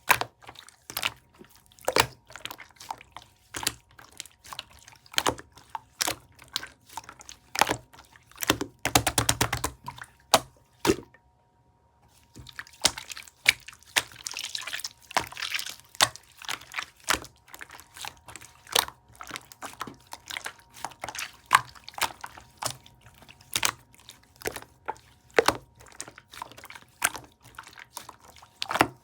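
Clear slime being squeezed, poked and stretched by hand, giving an irregular run of wet clicks and pops. A dense, rapid crackle comes about nine seconds in, and there is a short pause near twelve seconds.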